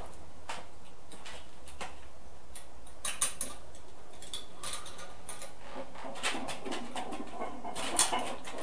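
A dip belt's metal chain and weight plate clinking and knocking as the plate is hooked on and lifted: a few light clicks about three seconds in, then a busier run of clatter in the last few seconds, loudest near the end.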